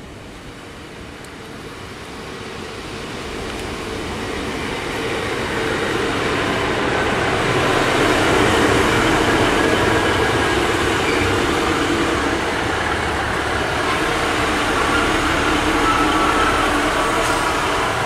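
Class 150 Sprinter diesel multiple unit approaching and running past the platform: its diesel engine and wheels on the rails grow louder over the first eight seconds or so, stay loud as the carriages go by, and ease off a little near the end.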